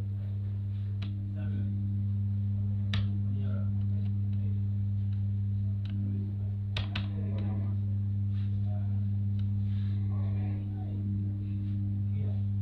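Steady low electrical hum on the studio microphone line, with a few faint clicks.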